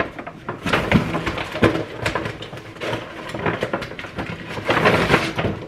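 Plastic grocery packaging being handled, crinkling and rustling in irregular crackles that get louder around one second in and again near the end.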